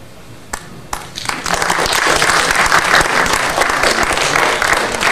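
Audience applauding: a few scattered claps at first, then the whole room joins in about a second in, and the applause stays loud and steady.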